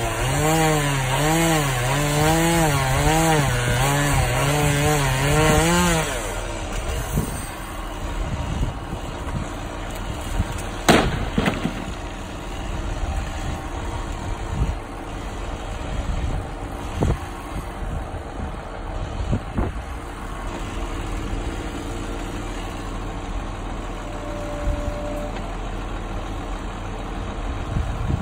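A chainsaw runs at high speed for about six seconds, its pitch wavering quickly up and down, then stops. Under it the bucket truck's engine idles, and about eleven seconds in there is one loud thump, with a few softer knocks later.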